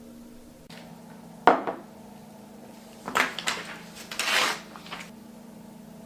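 Kitchenware clattering: one sharp knock about a second and a half in, then two clusters of clatter from about three to four and a half seconds, over a steady low hum.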